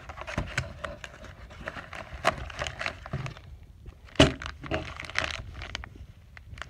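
Handling and unpacking of the table's hardware: a run of rustling, scraping and clinking from packaging and small metal parts (screws and brackets), with one loud knock about four seconds in.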